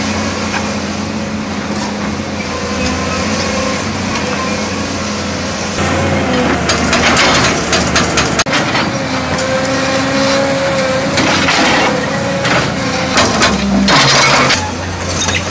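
CASE crawler excavator's diesel engine running steadily under load while the bucket digs into rocky soil, with several bursts of rock and soil scraping and grinding.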